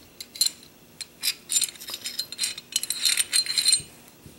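Light metallic clicking and clinking of steel pistol parts: the Norinco 213's barrel bushing being turned and the barrel and bushing worked out of the slide. The clicks come in a ragged run, busiest just before the end.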